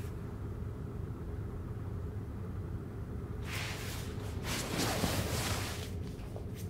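A low steady drone, with a rushing noise that swells about three and a half seconds in and fades away near the end.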